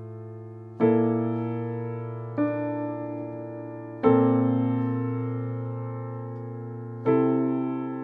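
Slow piano music: four soft chords struck one after another, each left to ring and fade away before the next, over a held low bass note.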